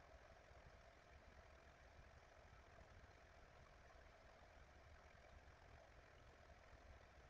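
Near silence: faint steady hiss with a low hum, room tone through the microphone.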